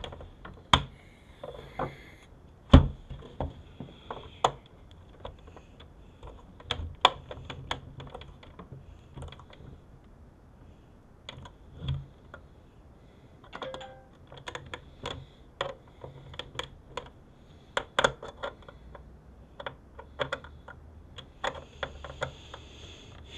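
Irregular sharp clicks and taps of small screws and a screwdriver handled against the sheet-metal case of a video entertainment system unit being screwed back together, the loudest about three seconds in.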